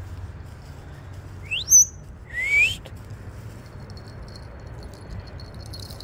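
Congo African grey parrot giving two rising whistles in quick succession about a second and a half in; the first sweeps steeply upward and is the louder.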